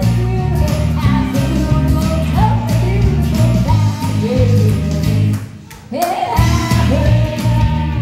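Rock song played over a karaoke system, with a voice singing the melody over guitar, bass and drums; the music briefly drops out for about half a second past the middle.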